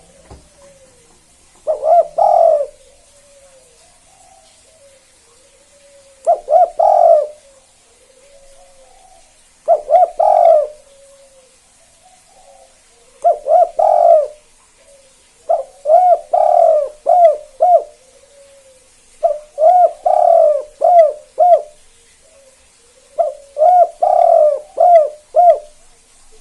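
Spotted dove (tekukur) cooing: seven loud phrases of several low coos each, about every three and a half seconds, with softer single coos in between. The later phrases hold more notes. It is a bird that dove fanciers grade as a 'kuk 2' singer.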